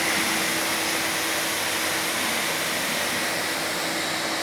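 Innova 30-litre wet and dry vacuum cleaner running steadily: a constant rush of air with a steady hum underneath.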